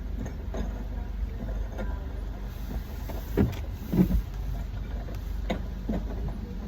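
Car engine idling, heard from inside the cabin, with a few soft low thumps around the middle.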